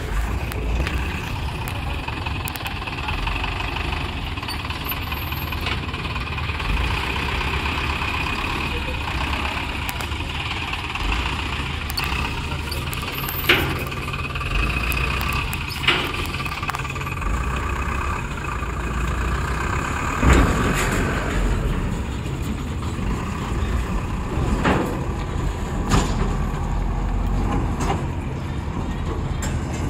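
Diesel engine of a heavily loaded truck running as it drives slowly over a steel ferry ramp and up a rough road. Several sharp clunks sound along the way.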